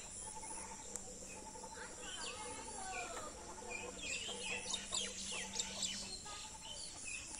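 Several birds calling and chirping in the open, including a short trilled phrase repeated every second or so. From about four seconds in, quick chirps crowd together. Under it runs a faint steady low hum that stops about six seconds in.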